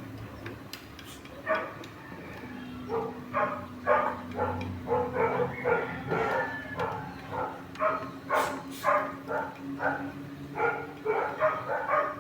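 A dog barking repeatedly in quick short barks over a steady low hum.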